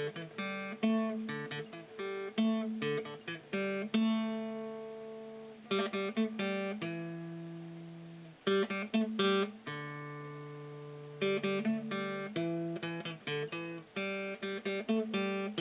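Outro music: acoustic guitar strumming chords in short rhythmic flurries, with some chords left to ring out for a second or two.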